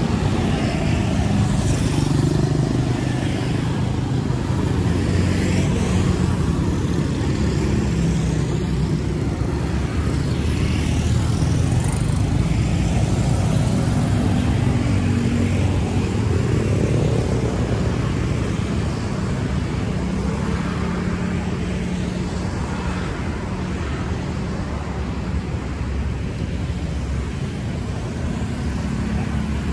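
Steady road traffic: the engines of passing cars and motorcycles running together without a break.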